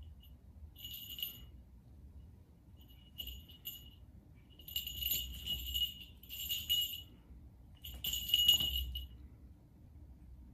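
A small bell on a cat's collar jingling in about five short bursts as the cat runs and pounces, the loudest burst near the end.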